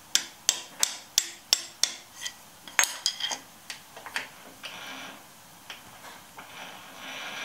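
Hammer tapping a steel rod held against a 4-jaw chuck jaw in a milling vise: eight or so sharp metal knocks about three a second, then a few lighter ones. It is nudging the jaw's low end to set it level under the dial indicator. A steady hiss rises near the end.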